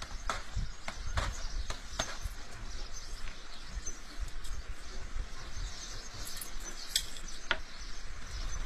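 Outdoor ambience: wind buffeting the microphone with a steady low rumble, scattered sharp clicks, and faint short bird chirps.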